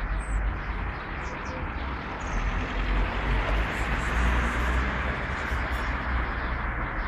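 Steady rushing noise with a low rumble that swells and fades.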